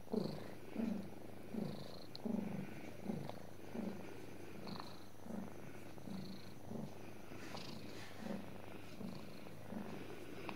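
Domestic cat purring while being stroked, a low purr that swells and fades in an even rhythm about every three-quarters of a second.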